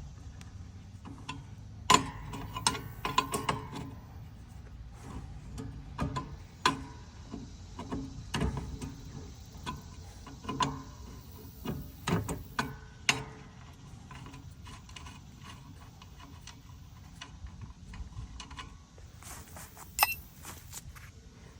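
Hand tools working a nut and tensioner spring on a mower's steel frame: scattered metal clicks and clanks at irregular intervals, with a quieter stretch in the middle.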